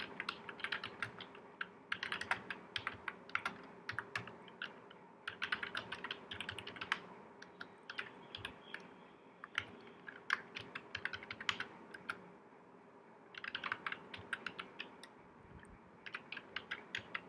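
Typing on a computer keyboard: runs of quick keystrokes in bursts, with short pauses between them.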